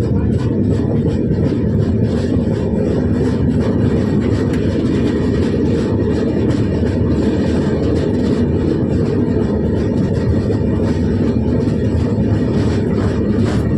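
Train running: a loud, steady low rumble.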